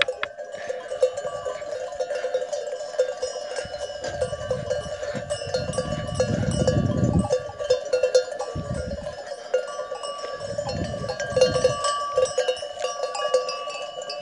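Livestock bells on a grazing flock of sheep and goats clanking continuously, a dense jangle of many bells. A low rumble comes and goes a few times in the middle.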